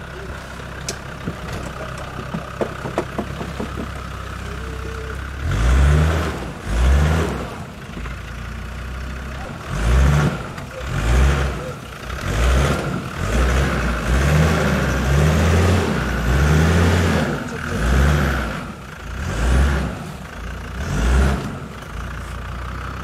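Land Rover Discovery TD5's five-cylinder turbodiesel running steadily, then from about five seconds in revving hard in about a dozen bursts roughly a second apart. This is the engine under load as the truck climbs a steep bank on 37-inch mud tyres.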